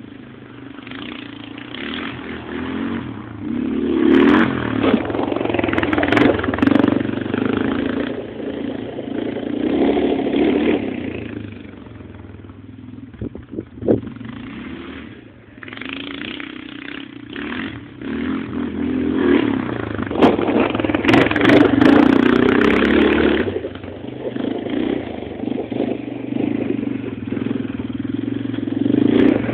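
Aeon Crossland 300 ATV engine revving up and easing off in long waves, loudest in two surges with a quieter lull between them. A sharp knock sounds during the lull.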